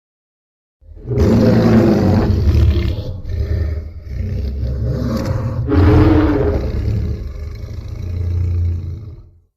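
Tyrannosaurus rex roar sound effect from a monster movie: one long, deep roar that starts about a second in, swells again near the middle and fades out near the end.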